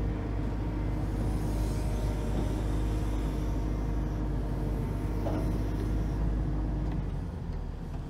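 John Deere 135G excavator's diesel engine running steadily as the machine travels forward on its tracks; the sound drops away about seven seconds in.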